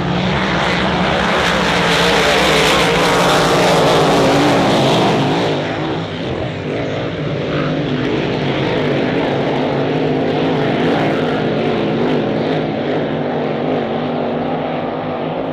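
Supercharged V8 racing hydroplanes at full throttle, engines running loud over the rush of spray as they pass. The sound is loudest in the first few seconds, then drops off at about six seconds as the boats draw away.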